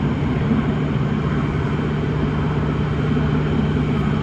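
Class 318 electric multiple unit running at speed, heard from inside the carriage in a tunnel: a steady low hum with the continuous rumble of wheels on the track.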